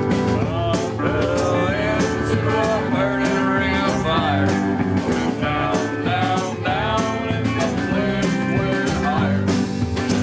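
Band music: a rock song with guitar and a steady drum beat, its lead melody bending in pitch.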